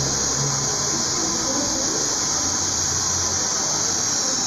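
Handheld hair dryer running steadily, a constant rush of air, blow-drying hair over a round brush.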